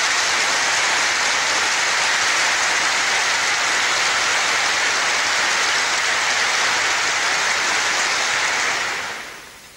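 Sustained applause from a large hall audience, a dense steady clatter of many hands that fades away near the end.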